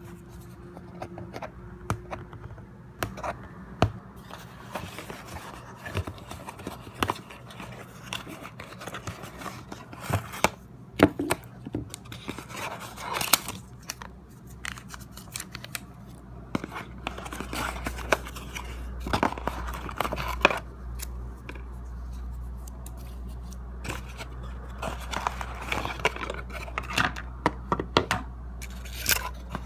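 Phone box and packaging being opened and handled: scattered clicks, scrapes and crinkling of cardboard and plastic. A low hum comes in about halfway through.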